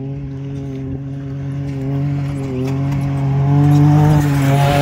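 Off-road truck's engine running as it drives toward the camera, growing louder over the last few seconds and rising slightly in pitch, with a hiss building near the end.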